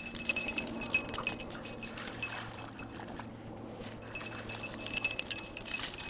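A hunting dog's safety bell jingling in quick, irregular clinks as the dog moves about. The clinks are busiest in the first second or so and again near the end.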